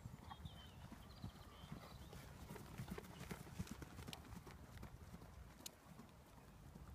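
Faint muffled hoofbeats of a ridden horse on a sand arena surface, loudest as it passes close by about three to four seconds in, over a low steady rumble.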